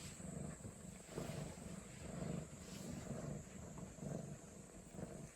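Cat purring close to the microphone: a low rumble that swells and fades in a steady rhythm with each breath, a little faster than once a second.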